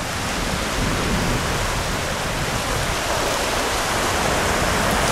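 Steady wash of small ocean waves breaking on a flat sandy beach at low tide.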